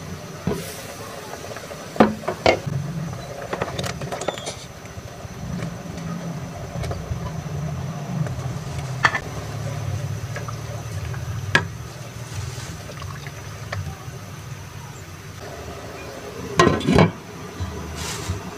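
Cooking at a stainless pot of simmering soup on a gas burner: a low steady rumble under sharp clinks and knocks as the glass lid is lifted and set back, sponge gourd slices are dropped in and a spatula stirs against the pot. The loudest knocks come about two seconds in and near the end.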